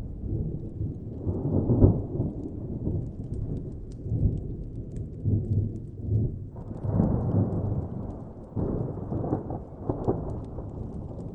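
Distant rolling thunder, with swells about two seconds in, again near seven seconds and around nine to ten seconds, over faint fire crackles.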